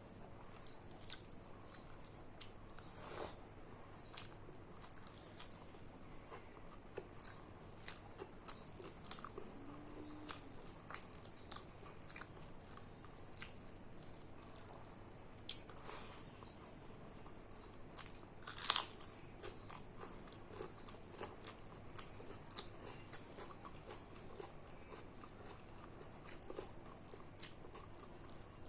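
A person chewing and biting food close to the microphone: many small, wet, clicking mouth sounds and light crunches. A louder crunch comes about 3 seconds in, and the loudest about 19 seconds in.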